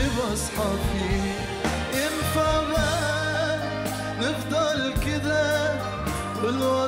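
A man singing an ornamented Arabic melody into a microphone, his voice bending and wavering between notes, with a live band behind him: sustained bass, drums and cymbal strikes.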